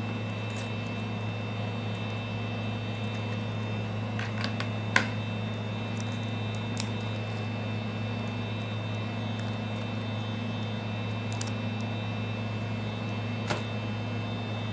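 Steady low electric hum, like a small motor or fan running, with a few small clicks of handling or tools. The sharpest click comes about five seconds in and a fainter one near the end.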